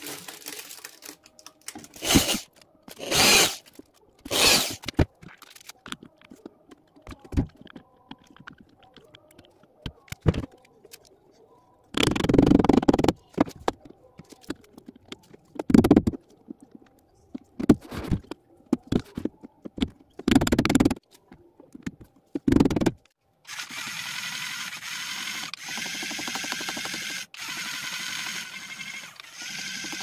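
Small yellow DC gear motor of a homemade remote-controlled door lock whirring in short bursts as it drives the sliding bolt back and forth, with a few knocks among them. Near the end it whirs more steadily, broken by short regular pauses.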